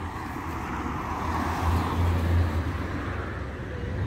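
A car passing close by: tyre and engine noise swells to a peak about two seconds in, with a low rumble, then fades.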